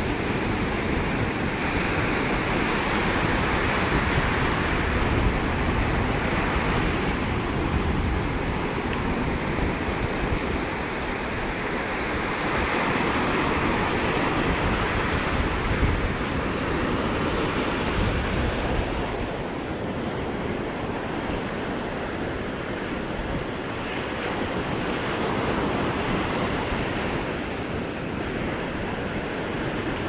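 Small sea waves breaking and washing up a sandy beach: a continuous surf hiss that swells and eases as the waves come in, with wind buffeting the microphone.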